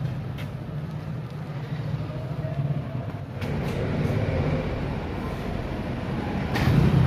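Steady rumble of street traffic, getting louder about three and a half seconds in and again near the end.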